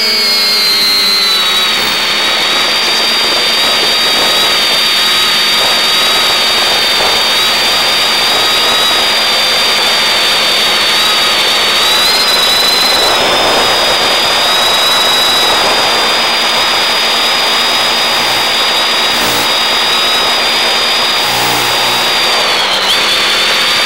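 X550 quadcopter's electric motors and propellers running at cruise throttle: a steady high-pitched whine over a hiss, heard through the FPV downlink audio. The whine rises slightly about halfway through and dips briefly near the end as the throttle changes.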